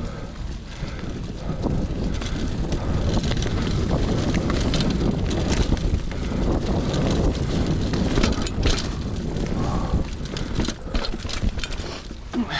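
Trek Marlin 7 mountain bike ridden along a dirt trail: tyre noise and rattling, with scattered sharp clicks and knocks as it goes over bumps, over a steady low rumble of wind on the microphone.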